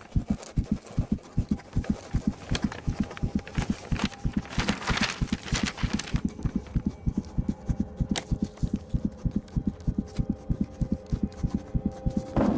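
Fast, even low thumping, about four to five beats a second, like a pounding heartbeat, with scattered sharper clicks over it.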